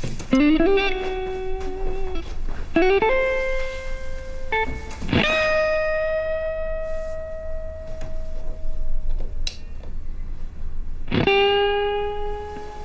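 Background score: a slow melody of four long held notes, each sliding up into its pitch, the third held for about four seconds.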